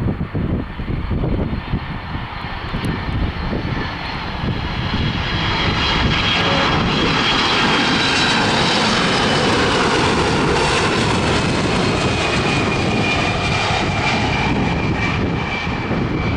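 Boeing 767 jetliner on final approach passing close overhead. Its engine noise swells over the first few seconds into a loud, steady rush, with a high whine that slowly drops in pitch as it goes by. Wind buffets the microphone underneath.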